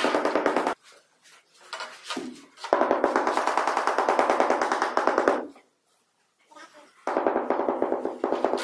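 Rubber mallet tapping rapidly on a large ceramic floor tile to bed it into the mortar. It comes in three quick bouts of fast, even strikes, separated by short pauses.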